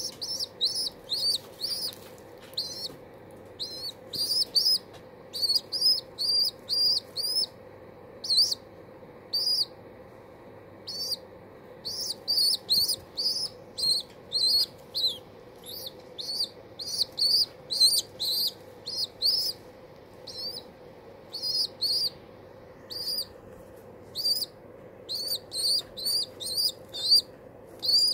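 Baby pigeon (squab) squeaking loudly and repeatedly, short high-pitched peeps in quick runs with brief pauses between. It is begging for food, still hungry after a big feed.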